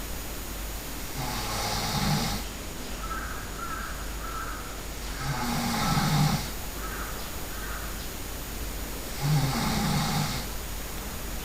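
A sleeping person snoring loudly, three heavy snores about four seconds apart, each lasting about a second.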